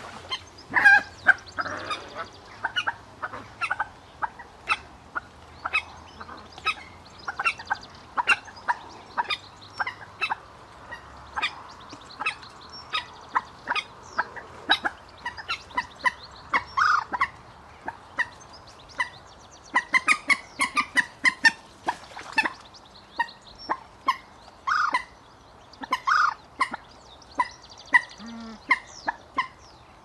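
Common moorhen calling: a long series of short, sharp calls at irregular intervals, coming thicker around twenty seconds in.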